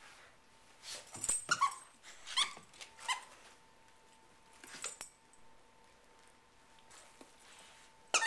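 Plush duck squeaky toy squeaking in short clusters as a Labrador bites down on it, each squeak a brief squeal that drops in pitch. There is a thump a little over a second in.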